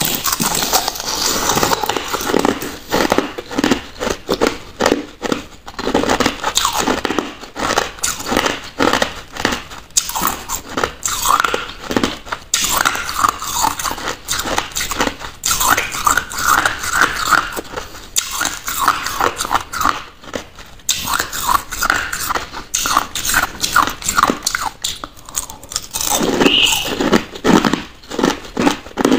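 Crushed ice being bitten and crunched between the teeth: a close, continuous run of sharp, brittle crunches.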